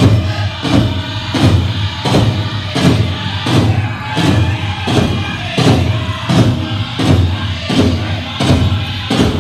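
Powwow drum group playing a chicken dance song: a big drum struck in a steady, even beat, a little under one and a half strokes a second, with the singers' voices carried over it.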